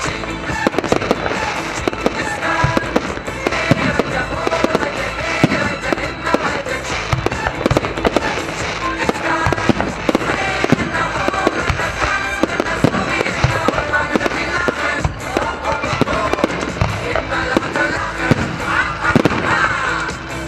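Fireworks display with shells bursting in a rapid, continuous string of bangs, and music playing alongside.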